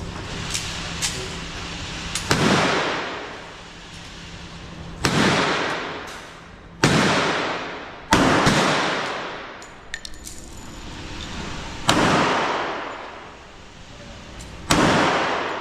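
Six single gunshots at uneven intervals, each a sharp crack with a long echoing decay in an indoor range.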